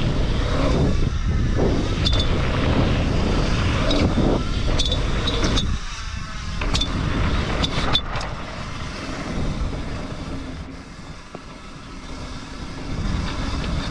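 Mountain bike ridden over rough, rocky dirt, with wind buffeting the microphone and a loud rumble that eases from about six seconds in. Sharp metallic ticks come from the chain tapping the bare chainstay: the frame's chain protector is missing, so the chain rattles against the frame.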